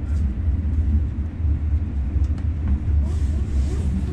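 Rhaetian Railway Bernina Express train running, a steady low rumble heard from inside the carriage, with a few faint clicks and a brief hiss about three seconds in.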